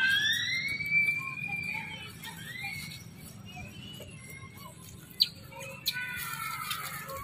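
Infant long-tailed macaques crying: a long high squeal that rises and then falls in pitch, a few short squeaks after it, and another falling squeal near the end. Two sharp clicks come a little after the middle.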